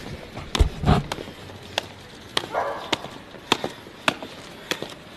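Sharp taps at a steady pace, about one every 0.6 seconds, with two heavier low thumps about half a second to a second in.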